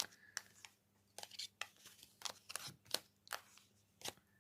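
Tarot cards being handled and shuffled: soft, irregular card clicks and rustles, about three a second.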